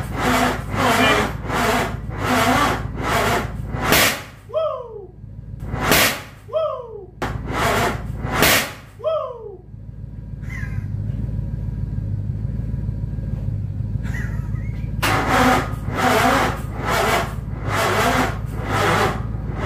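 Scag Cheetah zero-turn mower's engine cranked by its electric starter without catching. It turns over slowly at about two beats a second, then gets three short stabs at the starter, each ending in a falling whine, then a steady stretch, and slow cranking again near the end. It is a cold start in freezing weather: the engine is too cold to fire and the cranking is running the battery down.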